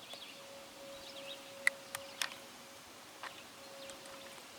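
Quiet outdoor background: a faint steady hum with four sharp light clicks around the middle and faint bird chirps.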